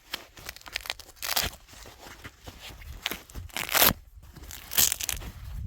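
A few short crunching, scraping noises, as of snow being trodden or scraped, loudest about a second and a half in, near four seconds and about five seconds in.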